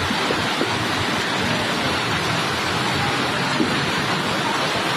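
Heavy monsoon rain and rushing floodwater: a steady, even wash of noise that does not let up.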